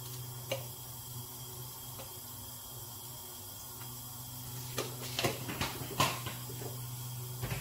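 Light clicks and knocks of kitchen things being handled, one about half a second in and a quick cluster around five to six seconds in, over a steady low hum.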